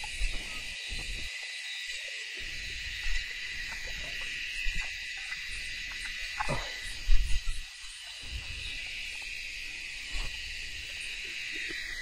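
Steady high-pitched chorus of insects droning in the grass, with a few short low knocks and rustles from orange plastic conduit and wire being handled, the loudest about seven seconds in.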